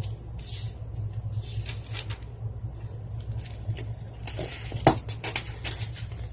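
Small plastic slime container handled: scattered rustling and scraping, with one sharp click about five seconds in.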